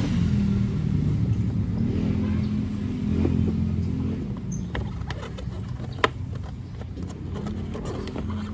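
A motor vehicle engine running with a steady low drone that eases off after about four seconds. From about five seconds in come short sharp clicks and light knocks of plastic parts and screws being handled, the loudest click about six seconds in.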